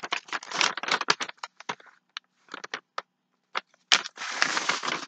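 A sheet of paper being folded and creased by hand: irregular crinkling and crackling with short pauses, the densest rustle near the end.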